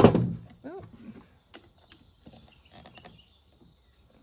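A sharp knock, then about a second in a short grunt-like vocal sound, then light scattered clicks of handling as a Universal Speed Feed trimmer head is tightened down onto a string trimmer's gear head.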